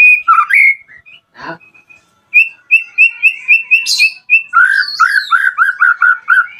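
White-rumped shama (murai batu) singing: a few clear whistled notes, then a fast run of repeated notes at about four a second, dropping to a lower run of repeated notes in the second half.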